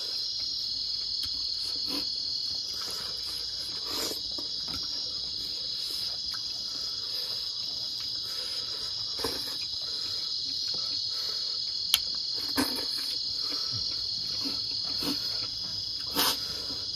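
A steady high-pitched chorus of insects such as crickets, with a few short wet smacks and clicks of chewing and eating by hand over it.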